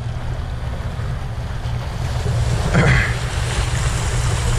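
Sea waves washing and breaking against the boulders of a rock breakwater, with wind buffeting the microphone as a steady low rumble. A brief, sharper sound breaks in about three seconds in.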